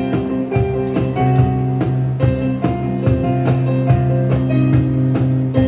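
Live band playing an instrumental passage: guitar over a steady drum-kit beat, with sustained notes throughout.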